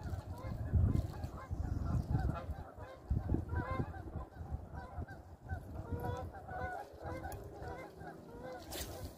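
A flock of geese honking, many short calls overlapping throughout. A low rumble of wind on the microphone is loudest in the first few seconds.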